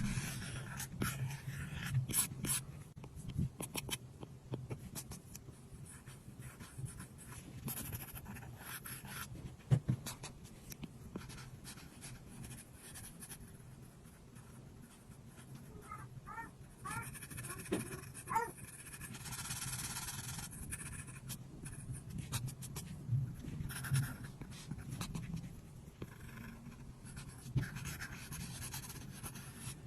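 Apple Pencil tip tapping and stroking on an iPad's glass screen, a run of light clicks and soft scratchy strokes, with a few short squeaks about halfway through.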